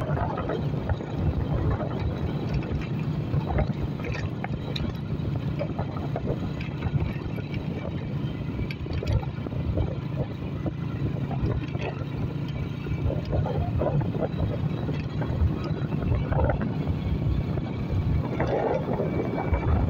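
Honda motorcycle engine running steadily as the bike rides along, with wind buffeting the microphone.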